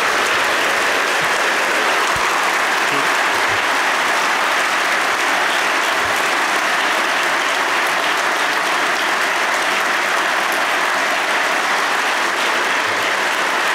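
Sustained applause from a large seated audience in a big hall, a steady dense clapping that follows the end of a keynote speech.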